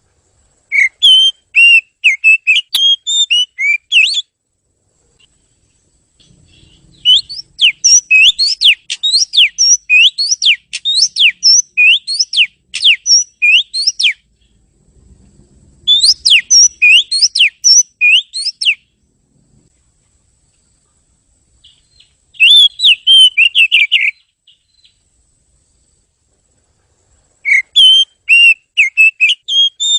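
Oriental magpie-robin (kacer) singing: rapid whistled phrases of sweeping notes, delivered in five bursts of two to seven seconds with pauses of a few seconds between them.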